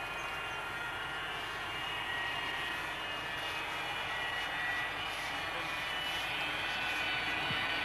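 Airliner engines running steadily: a rushing noise with a high whine over it, slowly growing louder.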